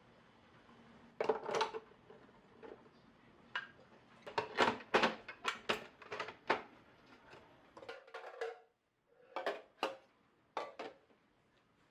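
Dishes and utensils clinking and knocking: a string of sharp clinks, some ringing briefly, thickest in the middle with a few more near the end.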